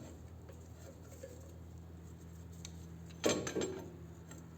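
Faint clicks and handling noises from metal motorcycle parts being worked by hand. About three seconds in there is one short, louder scrape, all over a steady low hum.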